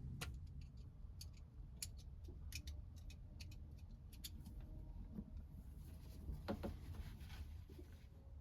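Scattered light clicks and soft rustling from plastic plumbing tubing and fittings being handled, with a brief hiss near the end.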